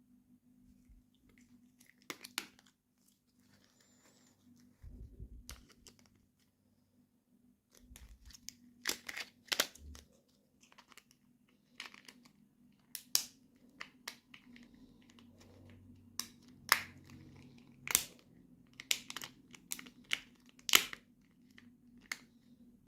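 Plastic and paper toy packaging being handled, crinkled and torn open, with irregular sharp crackles and snaps, several louder ones in the second half, over a faint steady low hum.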